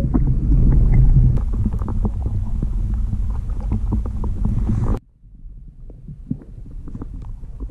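Underwater noise picked up by a submerged camera's microphone: a muffled low rumble with scattered small clicks and crackles. About five seconds in it drops suddenly to a much quieter rumble with crackles.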